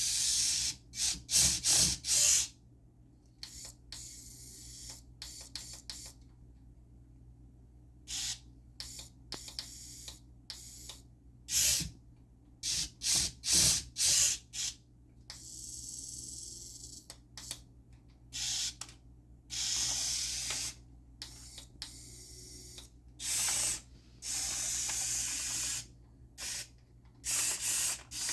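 Tiny electric drive motors of a 1:64-scale remote-control excavator whirring in short, stop-start bursts of varying length as it is driven over a computer keyboard, with its tracks scraping and clicking on the keys.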